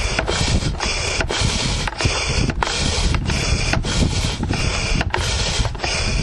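Air mattress pump pumping: a loud rush of air broken into even strokes, about one and a half a second, air going in and coming out.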